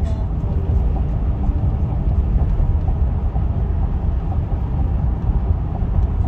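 Steady low rumble of a moving vehicle, with no music or speech over it.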